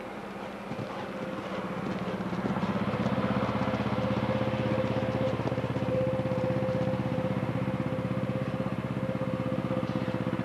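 A motor engine running steadily, growing louder about two seconds in and then holding, with a steady hum above its rapid pulsing.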